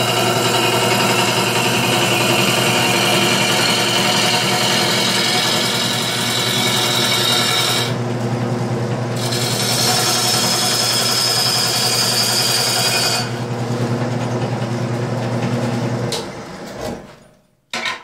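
Wood lathe running with a bowl gouge cutting into a spinning wet mulberry bowl blank, the shavings coming off with a loud hiss over the steady motor hum. The cut lifts off briefly about halfway and ends a few seconds later. The lathe is then switched off and winds down to a stop near the end, followed by a short knock.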